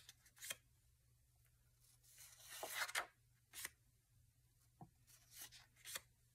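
Faint paper rustling and crinkling, a handful of short rustles as sheets of craft paper are handled and shuffled.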